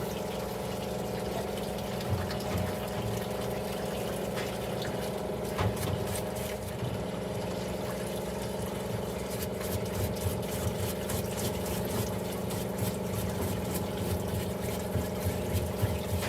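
Steady electric motor hum, with scattered light clicks and clatter in the second half.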